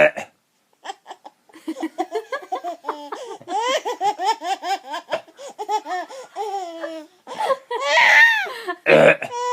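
A baby laughing hard in quick repeated bursts, rising to a high squeal near the end. A short fake burp comes right at the start and another just before the end, each setting off more laughter.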